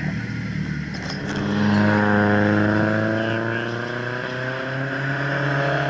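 A drift car's engine held at high revs while drifting, its pitch sagging slightly and then climbing again. For the first second or so another engine idles.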